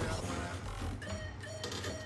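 Background music: an instrumental stretch of an electronic hip-hop track, a short repeating high synth figure over a steady bass, with no vocals.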